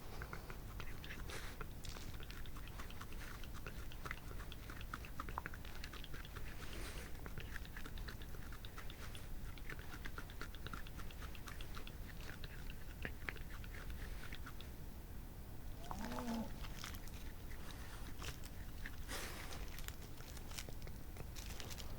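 European badgers grooming each other: quick irregular nibbling and scratching clicks in the fur, with a short pitched call about sixteen seconds in.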